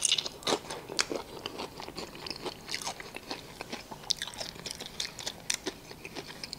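A person biting into crispy fried food, a loud crunch at the start and two more about half a second and a second in, then chewing with irregular crisp crackles.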